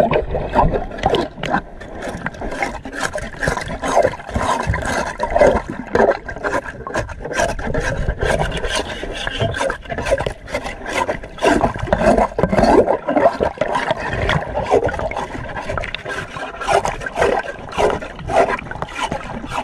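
Repeated rasping scrapes of a boat hull's underside being scrubbed clean of fouling below the waterline, with water sloshing. The camera is underwater, so the sound is muffled.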